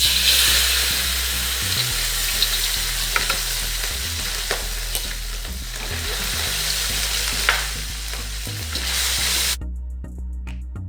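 Anchovies and sausage sizzling as they fry in oil in a frying pan, with a few sharp clicks along the way; the sizzle cuts off suddenly near the end.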